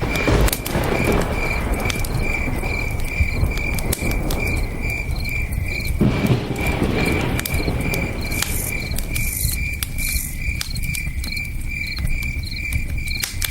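Campfire crackling with sharp pops over a steady low rush of river water, while crickets chirp in a fast, even pulse. The crackle swells into a fuller burst about a second in and again around six seconds.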